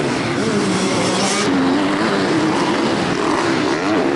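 Motocross motorcycle engines revving hard, their pitch rising and falling as the throttle is worked, with more than one bike running at once.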